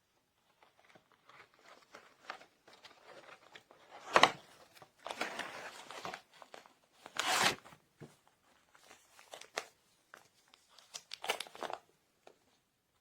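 Crinkly plastic packaging being handled and rustled, with irregular small clicks and three louder crackles, about four, seven and eleven seconds in.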